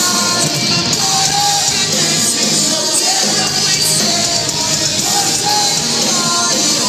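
A rock band playing loud and live: electric guitars, bass and drums with a sung lead vocal.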